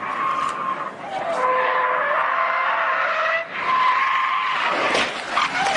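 Car tyres squealing in a long, steady skid as the car slides sideways on asphalt at speed, then a burst of sharp knocks and clatter near the end.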